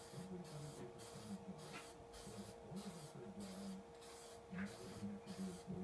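Aerosol spray-paint can spraying black paint in many short hissing bursts, about two a second.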